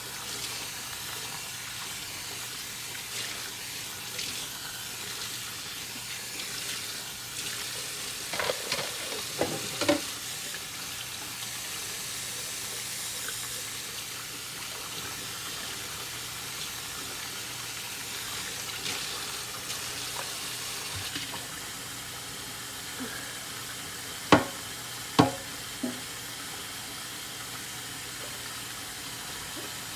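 Water running at a kitchen sink while dishes are washed, with dishes and utensils clinking: a few knocks about a third of the way in, then two sharp, louder clinks and a softer one later on.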